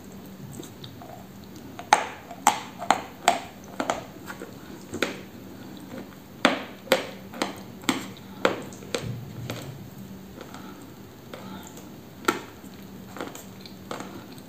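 Close-up chewing of a dry, brittle white block with a brown coating: sharp crunches about two a second in two runs, and one more crunch near the end.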